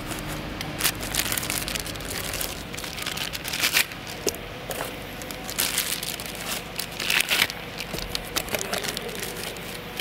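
Plastic bags crinkling and rustling in irregular bursts as pistons with connecting rods are unwrapped by hand from a cardboard box.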